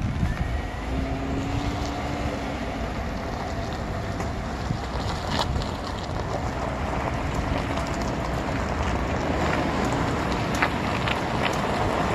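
Road and drivetrain noise of a 2018 GMC Sierra 1500 pickup going through a right turn, with a few sharp, irregular ticks: the ticking the owner hears when turning right.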